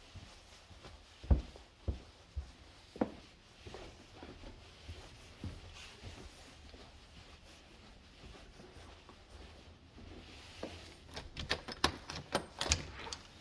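A few dull thumps of footsteps on carpeted stairs, the first about a second in being the loudest. Near the end, a doorknob is turned and a door latch clicks several times as an interior door is opened.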